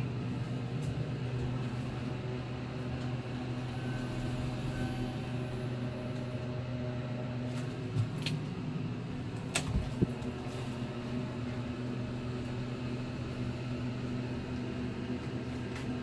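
Delaware hydraulic elevator's pump motor running with a steady low hum as the car rises, heard from inside the cab. A few short clicks and knocks come through around the middle.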